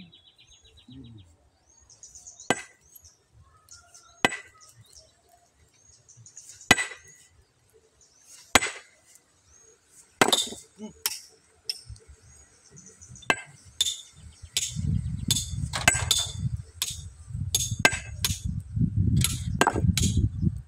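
Sledgehammer blows on a large stone boulder being split: sharp ringing clinks, about one every two seconds at first, then coming faster. In the last third a low rumbling noise runs under the blows.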